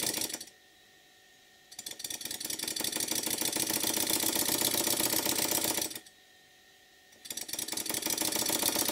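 Twin-cylinder model steam engine running on compressed air, its exhaust beating rapidly and evenly. It stops twice for about a second each time, as the slide valve regulator is closed and reopened by hand.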